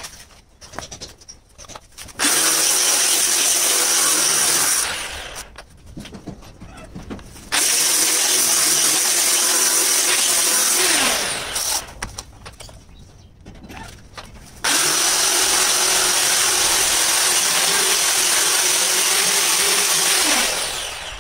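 Handheld angle grinder grinding the edge of a green marble countertop slab, run in three long passes with short pauses between them. Each pass starts abruptly with a steady high whine over the grinding noise and ends with the motor winding down in falling pitch.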